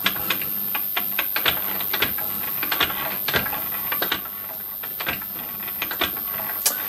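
Keyway-cutting tool on a lathe being stroked in and out of a cast iron gear's bore by hand: a rapid, irregular run of metallic clicks and scrapes, several a second, as each stroke shaves a light cut of a couple of thousandths from the slot.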